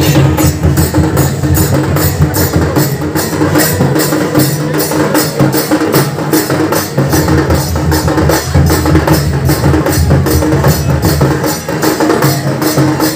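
Live Sambalpuri folk drumming from a procession drum band: drums beating a fast, steady rhythm with sharp strokes about four a second.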